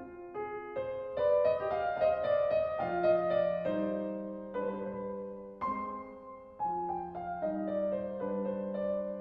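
Slow, calm instrumental background music led by piano, with notes struck one after another and left to ring and fade.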